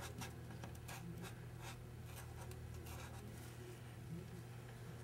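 Faint scratching of a glue pen's tip on paper as cut-out letters are glued onto a scrapbook page, with a few small clicks, over a steady low hum.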